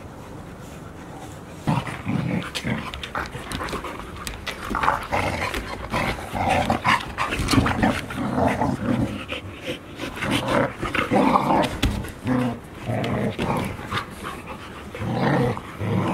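Golden retriever puppies play-fighting, with rough growls and yelps coming in irregular bursts from a couple of seconds in, mixed with scuffling.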